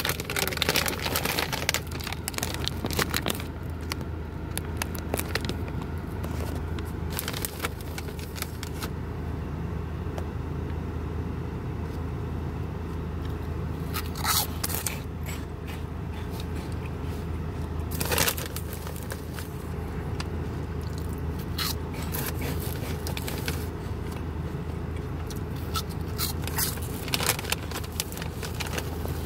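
Crinkling and crackling of a foil-lined snack bag of cheese puffs being opened and handled, densest in the first few seconds, then scattered crackles as a hand reaches in among the puffs. A steady low hum runs underneath.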